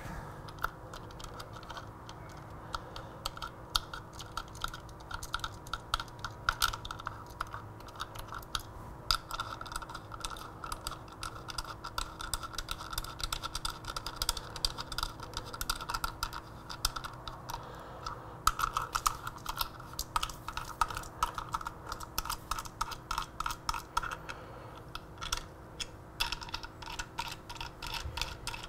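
Socket ratchet clicking rapidly as bolts are run in, in long runs of fast clicks broken by a couple of short pauses.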